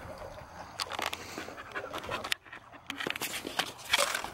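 A puppy panting close by, with scattered short clicks and rustles.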